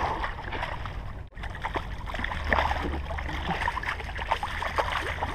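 Hooked largemouth bass thrashing at the surface close to the bank, with irregular splashing and sloshing of water throughout.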